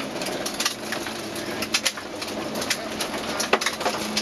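Datsun Stanza rally car driven hard on a gravel stage, heard from inside the cabin: steady road and engine noise with frequent sharp clicks and rattles as gravel and the stripped body shake and strike.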